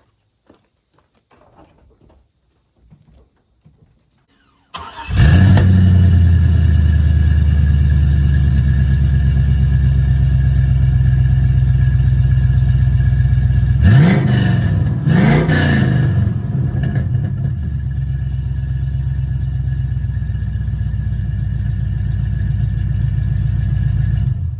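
5.3-litre LS V8 starting about five seconds in and idling, blipped twice in quick revs partway through, then idling steadily until it cuts off near the end. It runs without tailpipes, and runs smoothly and healthily.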